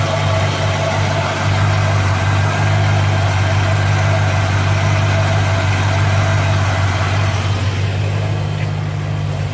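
A 1957 Chevrolet's engine running steadily, with its exhaust manifold bolts freshly tightened to seal a leak. The owner hears no exhaust leak, only that the ignition timing needs setting.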